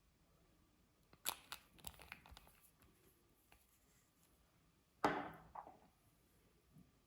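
Makeup containers and packaging being handled: a quick cluster of small clicks and crackles about a second in, then one sharp clack near five seconds that dies away over about a second.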